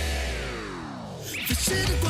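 Rock-style theme music drops into a falling pitch sweep lasting just over a second, then a rising swoosh brings the full band back in.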